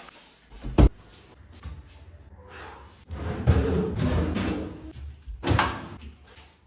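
A sharp bang, like a door or cupboard slamming, about a second in, then a few seconds of household clatter and handling noise, with another knock a little before the end.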